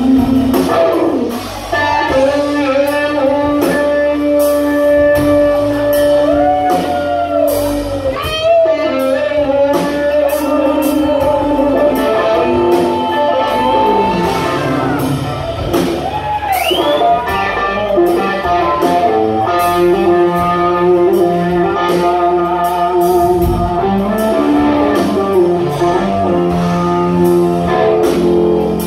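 Live blues-rock trio: a Stratocaster-style electric guitar plays a lead line of long held, sustained notes with string bends, one bending sharply upward about two-thirds of the way through, over electric bass and a drum kit, heard from the audience.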